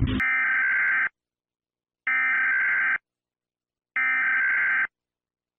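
An electronic beep sounds three times. Each beep is a tinny, buzzy tone just under a second long, with about a second of silence between beeps, like a telephone or error signal.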